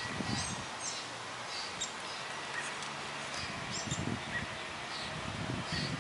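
Short high chirps repeating about once a second over steady outdoor background noise, with a few soft low rumbles.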